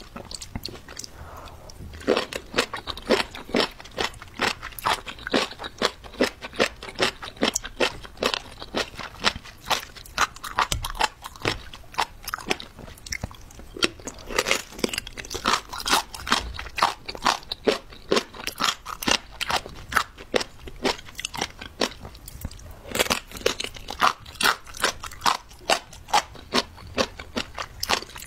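Close-miked crunchy chewing and biting of jellyfish: rapid crisp crunches, about two to three a second, fainter for the first two seconds.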